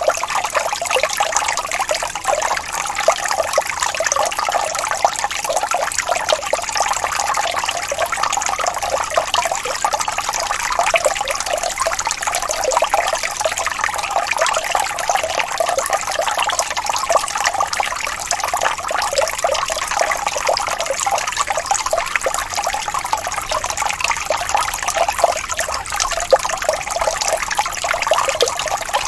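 Water falling from a fountain, splashing and trickling steadily.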